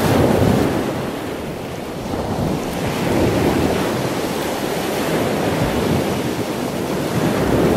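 Rushing sound of ocean waves, a steady wash of surf that swells and eases every few seconds.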